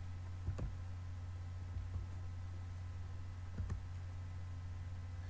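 A few scattered clicks of a computer keyboard and mouse, some in quick pairs, over a steady low hum.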